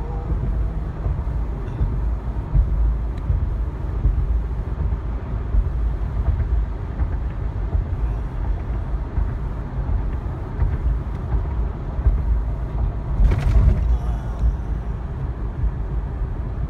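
Road noise heard from inside a moving car: a steady low rumble of tyres and engine, with a brief louder rush about thirteen seconds in.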